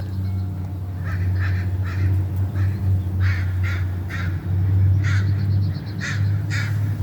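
Several crows cawing excitedly, a rapid run of short harsh calls about two a second, over a steady low hum.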